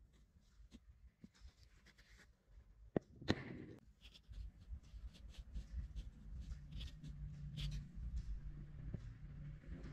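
Faint handling sounds of modeling-clay track pieces being set down and shifted into place on a flat surface: light taps and soft rubbing, with a sharper knock about three seconds in.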